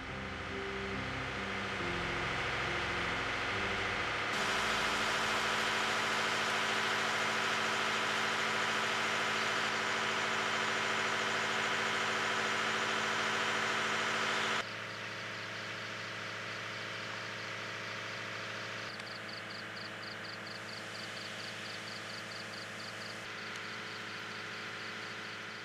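Steady engine-like machine hum under a loud wash of noise, dropping suddenly to a quieter hum partway through. Near the end, insects chirp in fast, even pulses over it, and the tail of a music track fades out in the first few seconds.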